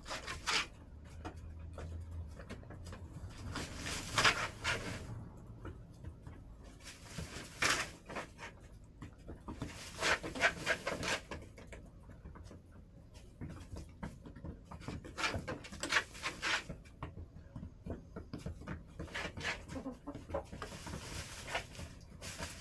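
Backyard laying hens in their coop: soft intermittent clucking mixed with scattered scratches and pecks.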